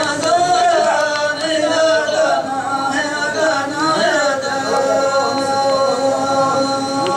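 Hadrami dan singing: a slow, melismatic vocal melody with gliding pitch and long held notes, the longest in the second half.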